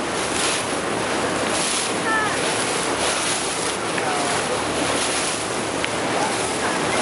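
Steady rush of wind on the microphone and water washing past a moving river cruise boat, with faint voices in the background.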